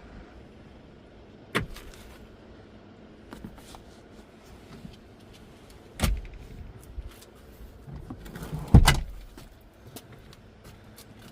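A few scattered knocks and thumps: one about one and a half seconds in, a heavier one about six seconds in, and the loudest near nine seconds, over a low steady background.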